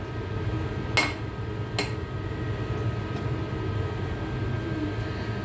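A steady ventilation hum, with two sharp clinks of dishes being handled: one about a second in and a lighter one shortly after, as a plate is set down and a metal dish picked up.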